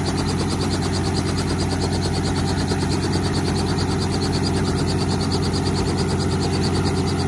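Robinson R44 Raven helicopter running on the ground, its piston engine going and two-blade main rotor turning with a steady, rapid beat.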